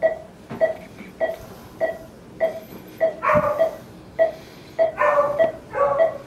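Anaesthesia monitor beeping steadily, about one and a half short beeps a second, in time with the anaesthetised dog's pulse. Twice, about halfway and near the end, a short voice-like cry sounds over the beeps.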